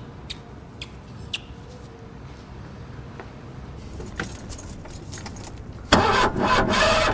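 A few faint clicks, as of car keys, then about six seconds in a car's starter cranks the engine loudly without it catching. The car won't start, blamed on a battery run flat by lights left on.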